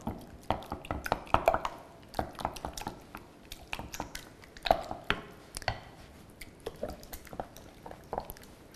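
Wooden spatula stirring a thick, wet quiche filling of eggs, cream, cheese and chard in a glass bowl: irregular squelching with sharp taps of the spatula against the glass, several a second.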